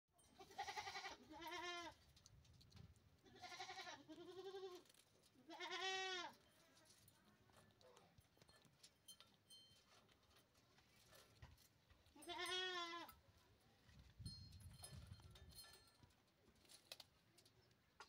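Alexandrine parakeet calling: two pairs of drawn-out calls that rise and fall in pitch in the first five seconds, then a single call at about six seconds and another at about twelve and a half seconds.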